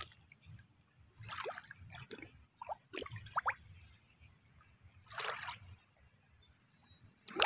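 Shallow muddy water sloshing as someone wades or shifts in it: a few soft wet splashes several seconds apart, with small rising plinks of dripping water between them.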